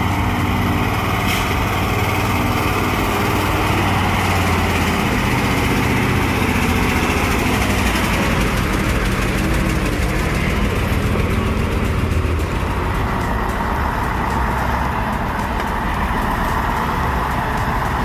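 Heavy truck engine running, its pitch shifting up and down several times as the engine speed changes.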